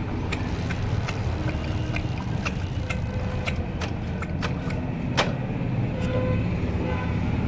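Scattered metal clicks and clinks of tools working on a motorcycle engine, with one sharper knock about five seconds in, over a steady low vehicle rumble.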